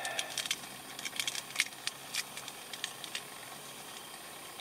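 A small paper spice sachet crinkling and ticking in the fingers as red spice is shaken out of it, in scattered light clicks.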